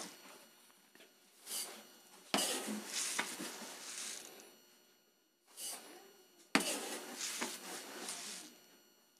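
Uncooked rice being scooped and poured into a plastic bag: two sharp starts, each followed by about two seconds of rustling, pattering hiss, with shorter rustles in between.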